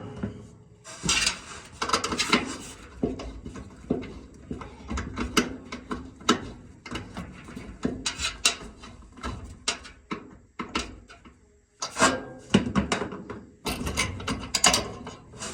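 Irregular clicks, clanks and scrapes of a Samsung dryer's drive belt and idler pulley assembly being worked by hand around the drive motor pulley, with busier clusters of clatter about a second in and again late on.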